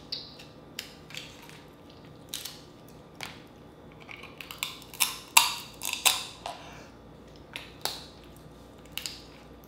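Cooked Dungeness crab being pulled apart and eaten by hand: shell cracking and snapping, wet squishing of the meat and chewing, as a string of sharp cracks and clicks at irregular intervals, the loudest about five and a half seconds in.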